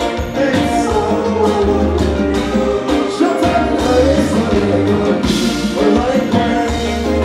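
Live konpa band playing: keyboards and electric guitar over a steady bass pulse and drums, with a male singer singing the lead into a microphone.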